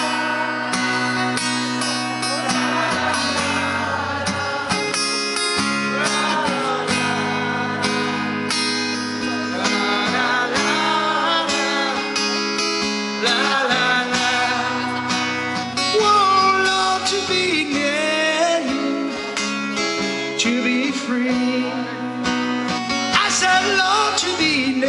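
Live band music filmed from the crowd: a male singer over a strummed acoustic guitar and backing band.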